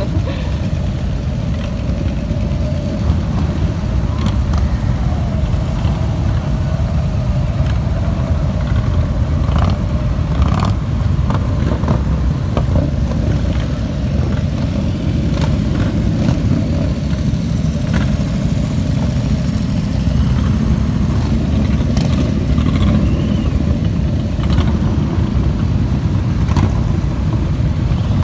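A column of motorcycles, touring bikes and cruisers, riding slowly past one after another, their engines running in a steady low drone with scattered short clicks and pops.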